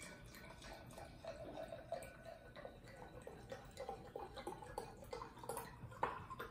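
Red wine being poured from a bottle into a cut-glass wine glass: a soft, uneven glugging trickle of liquid, with a sharper tick about six seconds in.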